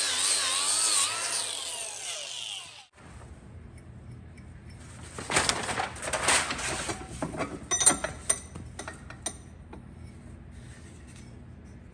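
Cordless Milwaukee angle grinder spinning a hook-and-loop sanding disc against an axe head, its whine rising and falling with the load, then cutting off about three seconds in. A few seconds later comes a run of short scrapes and clicks.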